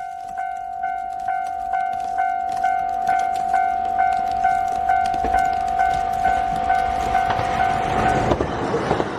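Japanese level-crossing alarm ringing, an electronic bell struck a little over twice a second. About eight seconds in the bell drops out as the rushing rumble of an approaching train swells.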